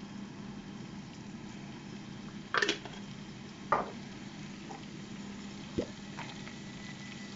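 Mustard seeds popping in hot sesame oil in a saucepan: four or five sharp, separate pops, the loudest about two and a half seconds in, over a steady low hum.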